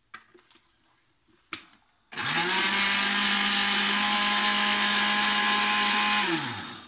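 Moulinex countertop blender: a couple of light clicks as the lid goes on, then about two seconds in the motor spins up, runs steadily for about four seconds mixing liquid eggs and oil, and winds down near the end.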